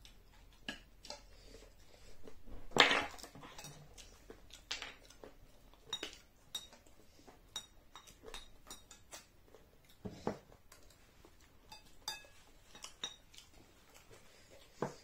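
A spoon clinking and scraping against a bowl in scattered small clicks. There is a louder clatter about three seconds in and another around ten seconds.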